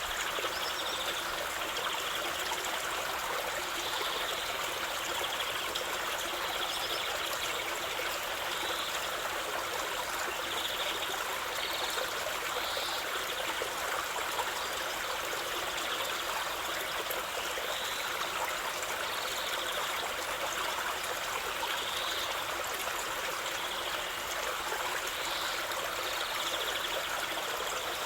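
Stream of water running and trickling steadily, with small higher-pitched flecks of sound every second or two.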